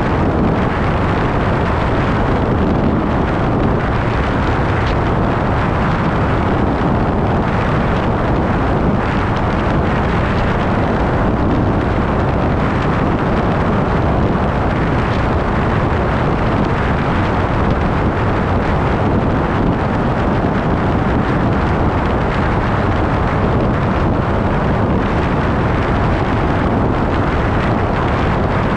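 Steady rush of wind buffeting the microphone over the road and engine noise of a vehicle travelling at highway speed.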